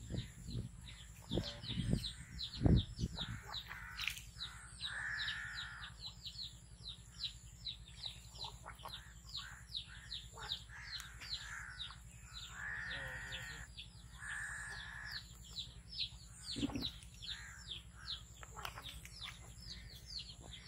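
Small birds chirping rapidly and without a break, several short falling chirps a second, with four harsh calls about a second long spread through the middle. A few low thumps come in the first three seconds, the loudest just under three seconds in.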